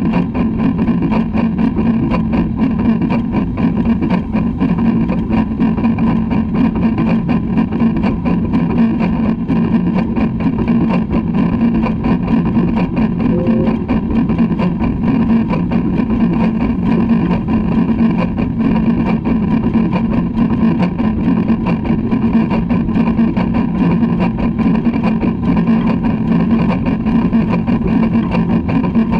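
LMS Black 5 steam locomotive No 45407 running steadily along the line, its running noise and wheels on the rails mixed with wind rushing over the front-mounted microphone. The noise is loud and even, without pauses or sudden sounds.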